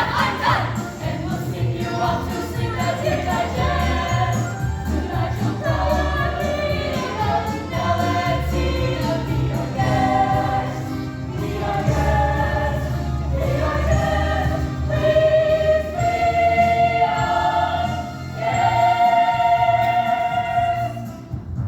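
High school choir singing a medley in several voices, with long held chords toward the end.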